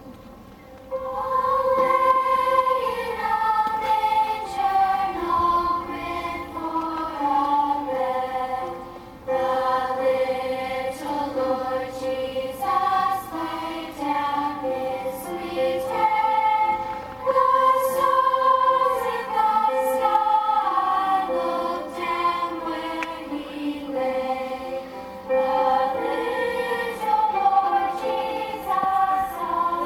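A choir singing a slow carol in held, sustained notes, starting about a second in.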